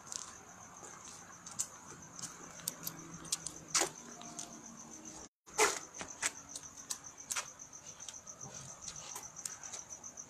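Crickets chirping in a steady high trill, with scattered clicks and knocks from handling and steps. The audio cuts out for an instant about five seconds in.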